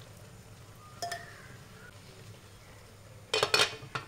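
A steel ladle clinks once against a clay pot about a second in. Near the end a glass pot lid clatters down onto the pot with several quick clinks, the loudest sound.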